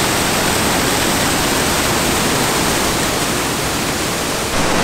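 Rogie Falls, a waterfall pouring over rock ledges, with a steady, loud rush of water.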